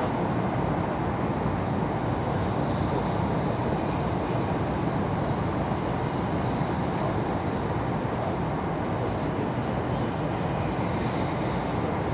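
Taiwan High Speed Rail 700T train running at speed: a steady rumbling rush of running noise with no breaks, heard through the car.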